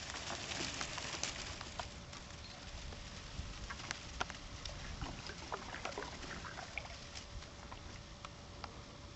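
River otters moving in swamp water: scattered small splashes, drips and sharp clicks over a low background hiss.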